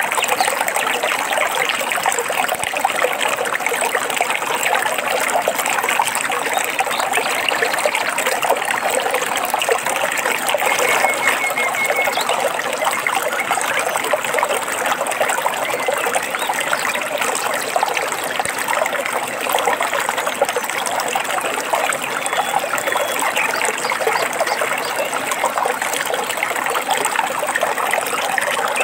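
Stream water trickling and babbling steadily over stones. A short, faint bird trill about eleven seconds in.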